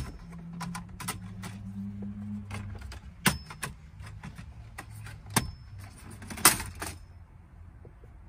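Scattered sharp clicks and clinks of plastic dash trim and small metal parts being handled as the centre console trim and Torx screws are worked loose, with a low hum during the first two seconds.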